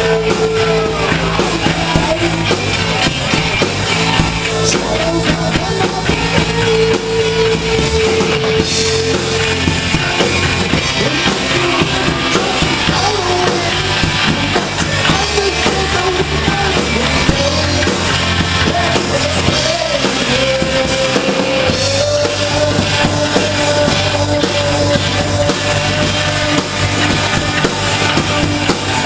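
Live rock band playing loudly, with drum kit, electric guitars and a singing voice, and long held notes over a steady beat.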